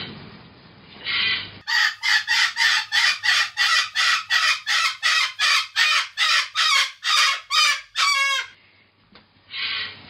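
Cockatoo calling: a fast run of short, loud, raspy calls, about three a second, that ends in one longer wavering call.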